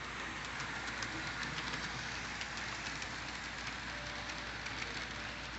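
Vintage TYCO HO-scale freight train running on the layout track, its diesel locomotives powered by a Power-Torque motor and an MU2 drive. A steady running noise with a quick, irregular patter of small clicks from the wheels on the track.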